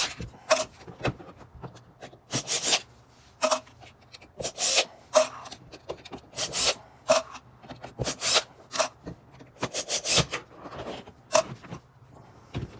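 Screws being taken out and a sofa's wooden center-console piece worked free by hand: irregular scrapes and rubs of wood and plastic with short knocks, and no power tool running.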